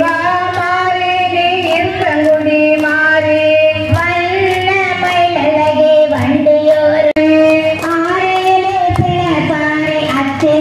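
A high voice singing a devotional song in long, gently wavering held notes, over a regular sharp beat.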